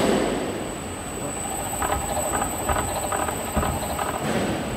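Steel pinion on an electric drive turning against a pillar jib crane's larger slewing gear, the teeth meshing with a squeal and a run of short, regular clicks.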